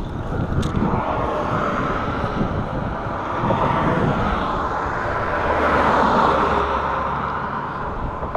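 Road traffic passing close by: a steady rush of tyres and engines that swells to its loudest about six seconds in, then fades.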